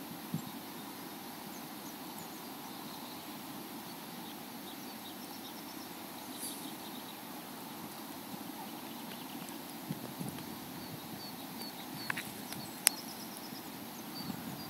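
Outdoor ambience on a phone microphone: a steady, irregular low rumble, with a few faint high chirps and two sharp clicks near the end.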